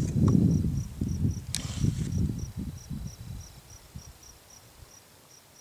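Insect chirping in short, evenly spaced high-pitched pulses, about three a second, over a low rumble that dies away over the first few seconds. A single sharp click about one and a half seconds in.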